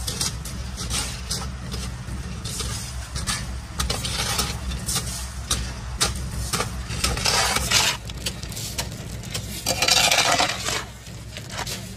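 Metal clinking and knocking over a steady low engine rumble, with two longer bursts of rushing hiss, one in the middle and one near the end.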